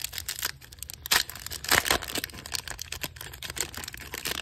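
Foil trading-card booster pack crinkling and tearing as it is ripped open by hand. It is a rapid run of crackles, with two louder rips about a second in and just under two seconds in.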